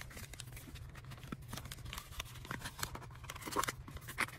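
A paper planner being worked into a clear plastic jelly cover by hand: rustling and scraping of plastic against paper with many small clicks. It gets louder near the end.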